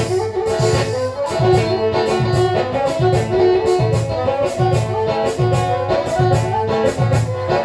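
Ethiopian masinqo, a one-string bowed fiddle, playing a melody over a steady hand-played kebero drum beat.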